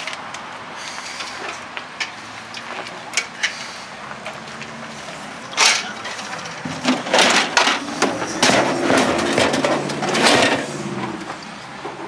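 Metal parts of a scrapped refrigerator being handled and worked loose by hand: a few separate clicks and knocks, then a busier run of scraping and clattering in the second half.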